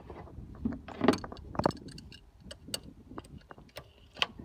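Wrench clicking and clinking against the fuel filter housing nut on a Rochester Quadrajet carburetor: a string of irregular light metallic taps.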